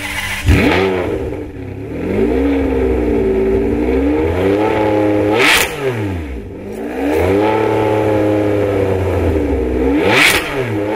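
Ferrari 599 GTB Fiorano's 6.0-litre V12 being revved in place. A quick blip comes early, then a held rev that sags and climbs again, a sharp high blip about halfway, another held rev, and a second sharp blip near the end.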